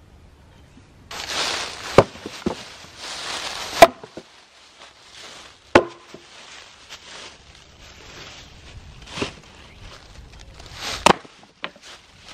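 Axe chopping into old wooden boards: a handful of sharp, spaced-out strikes, with dry leaves rustling in between.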